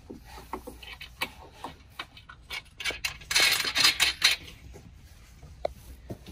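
Metal nuts and washers clinking and scraping as they are threaded and tightened onto the steel bolts holding the chair to its base frame: scattered light clicks, with a denser stretch of metallic scraping about three seconds in lasting a second or so.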